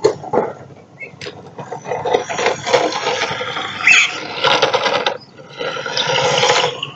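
Toy remote-control car driving over rough ground: a few knocks in the first second, then its motor and wheels run in two long bursts of throttle, the second beginning near the end.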